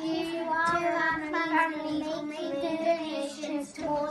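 A child's voice singing a melody, with long held notes.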